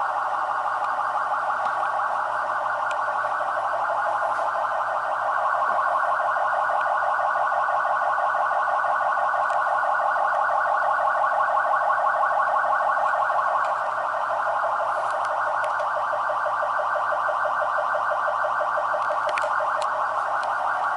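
Electronic police siren sounding a rapid warbling tone that sweeps up and down many times a second, unbroken throughout.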